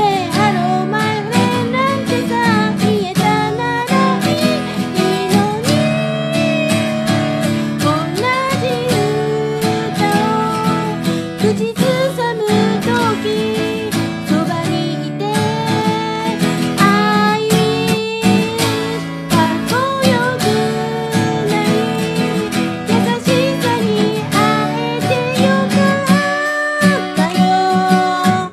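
Steel-string acoustic guitar strummed in a steady rhythm, accompanying a woman singing the melody.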